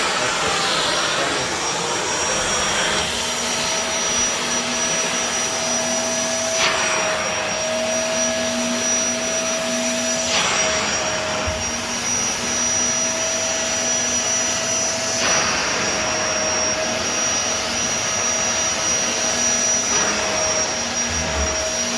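Hitachi CV-950F vacuum cleaner running steadily: a rushing airflow with a constant high-pitched motor whine. A few brief surges in the rushing air come every few seconds.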